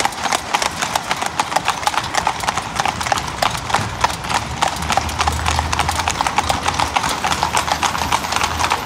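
Hooves of several cob horses clip-clopping on a tarmac road as they pull carts, a fast, dense patter of many hoof strikes. A low hum joins in about halfway through.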